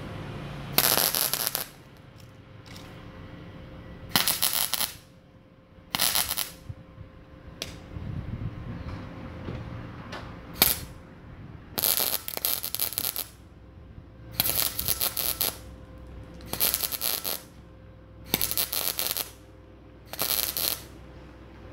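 Stick (arc) welding: the arc crackles and sizzles in about ten short bursts, roughly a second each and spaced about two seconds apart, as short welds are laid on a steel wheel-bearing mount.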